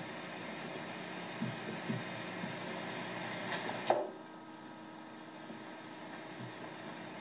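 Steady electrical hum, with one sharp knock about four seconds in.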